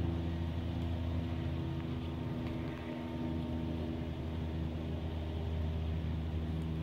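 A motor running steadily: an even, low droning hum that does not change.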